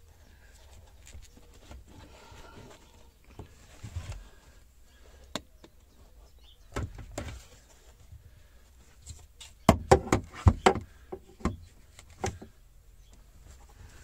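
Scattered knocks and clicks from handling and tools against the car's sheet-metal body, with a quick cluster of sharp knocks about ten seconds in.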